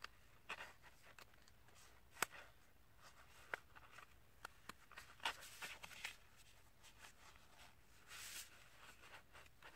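Faint crinkling and rustling of a sheet of paper being folded and creased by hand, with a handful of soft, sharp paper clicks and a short rustle near the end.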